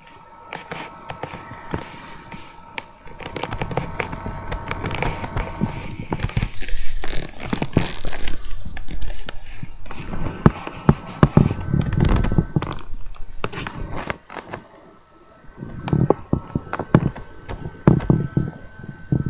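A sheet of paper rustling and scraping as it is handled close to the microphone, with irregular clicks and crackles.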